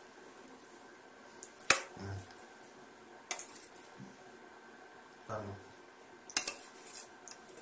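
A metal spoon clinking and scraping on a stainless steel plate as it cuts into soft colostrum pudding, with two sharp clinks, one about two seconds in and one near the end, and lighter taps between.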